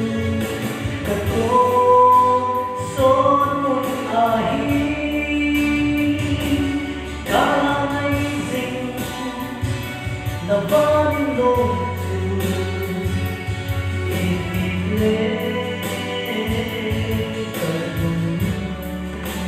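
A man singing a gospel song into a microphone over a recorded music backing track, holding notes for about a second at a time.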